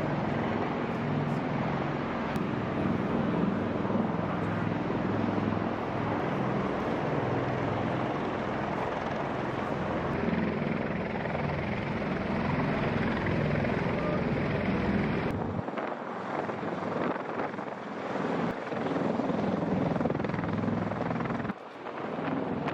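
CH-53E Super Stallion heavy-lift helicopter running close by: a steady rush of turbine and rotor noise with a pulsing low rotor beat. About two-thirds of the way through, the deep beat drops away and leaves a thinner, gustier rush.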